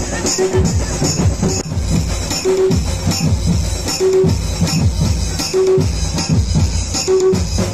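Loud music with a heavy drum beat and jingling percussion like a tambourine, with a short tone repeating about every one and a half seconds.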